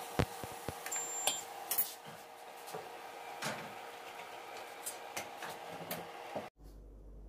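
Metal spatula stirring jackfruit curry in a steel kadhai, with sharp clicks and scrapes of the spatula against the pan, most of them in the first two seconds, over a steady hum. About six and a half seconds in the sound drops abruptly to a quieter low hum.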